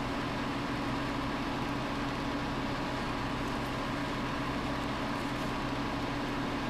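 A steady, unchanging machine hum: a low drone with a fainter higher tone over a soft hiss.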